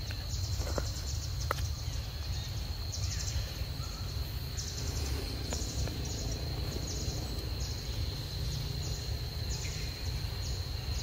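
Insects calling: a steady high-pitched drone with shorter, higher buzzes repeating about once a second, over a low steady rumble.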